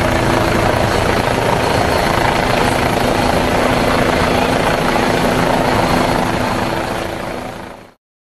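Helicopter flying low overhead: steady rotor and engine noise with a fast beating in the low end. It fades out near the end and then cuts off suddenly.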